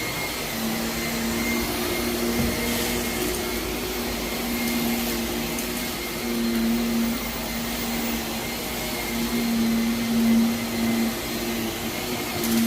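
Vacuum cleaner running over heavily soiled carpet, pulling up dry soil; its motor hum swells and fades every second or two as it is pushed back and forth.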